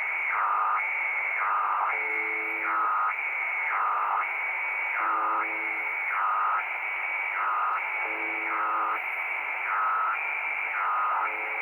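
Shortwave radio tuned to UVB-76: a short low buzz about every three seconds, typical of the station's buzzer. Over it, in static hiss, runs a louder warbling tone that switches between a high and a lower pitch about once a second.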